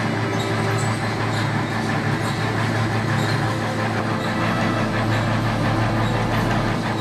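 Clay brick extruder and its feed conveyor running: a steady, loud mechanical drone with a strong electric-motor hum, and faint clicks repeating every half second or so.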